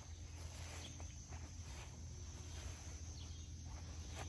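Faint outdoor ambience: insects chirping in the background over a low, steady hum.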